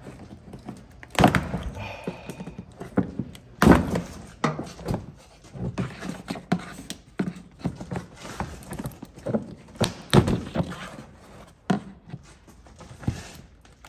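Irregular knocks, clicks and plastic scraping as a pickup's plastic inner fender liner and its wiring-harness clips are pried loose and worked out of the wheel well, with a few sharper thunks among them.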